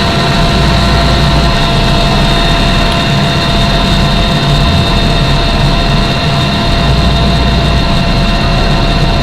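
Helicopter turbine engine and rotor running steadily: a loud, even whine over a low rumble.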